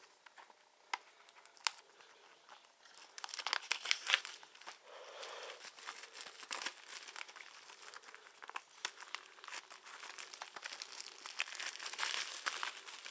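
Plastic shrink-wrap crinkling and tearing as it is pulled off a Blu-ray combo-pack case, with a few sharp clicks of the case being handled early on.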